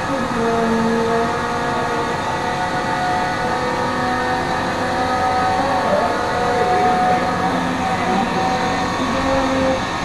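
Road traffic: vehicle engines running steadily, their pitches shifting and gliding as vehicles rev and pass.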